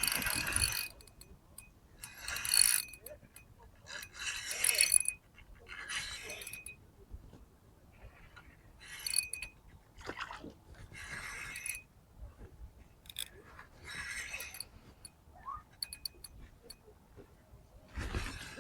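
Spinning reel being cranked in short spurts of about a second, roughly every two seconds, with faint clicks between them: a stop-and-go lure retrieve.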